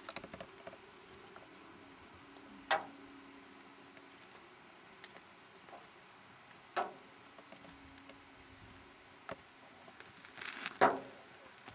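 A few short, sharp knocks or taps over a quiet background: single ones about three and seven seconds in, and a louder cluster near the end.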